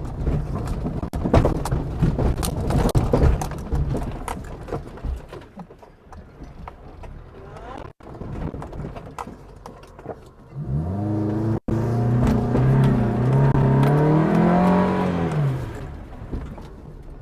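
SUV driving over rough off-road ground: a rumble with many sharp knocks and rattles from the chassis over the first few seconds, the suspension noises being checked. About eleven seconds in, the engine revs hard, its pitch climbing and then falling away over about five seconds.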